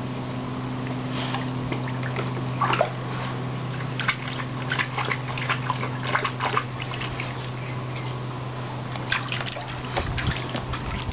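Staffordshire bull terrier splashing and lapping at the water in a plastic paddling pool, in several short bouts, with a steady low hum underneath.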